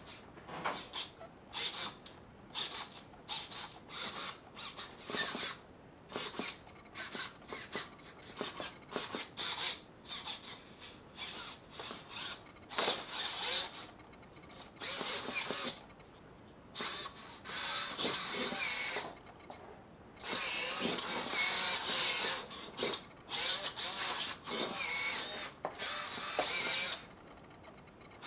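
High-torque hobby servo motors inside a robotized doll whirring in many short, irregular bursts as they swing its arms and legs, with a few longer runs in the second half.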